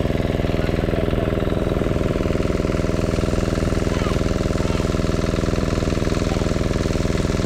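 A generator engine running steadily: a constant, rapidly pulsing drone.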